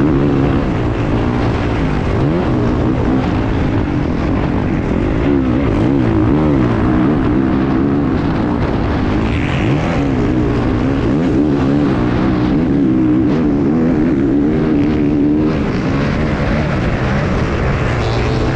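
Racing enduro motorcycle engine heard close from an onboard camera on the bike, running hard with the revs rising and falling constantly as the throttle is worked.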